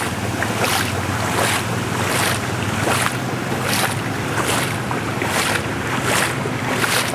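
Footsteps wading through floodwater, a splash with each stride, a little more than one step a second, over a steady low hum.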